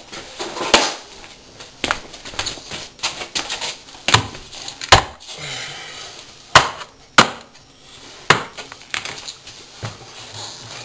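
Irregular sharp knocks and bumps of a wooden skirting board being pushed and knocked tight against the wall at a glued corner, about a dozen spread unevenly.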